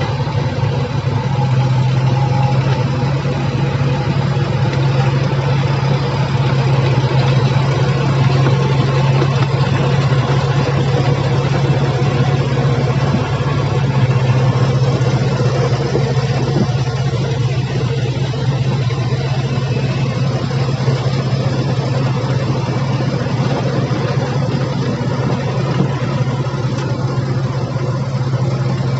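Engine of heavy earthmoving machinery running steadily, a constant low hum without revving.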